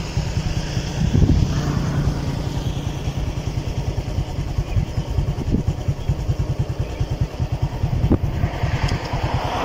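A small engine idles steadily close by, as a low, rapid, even chugging.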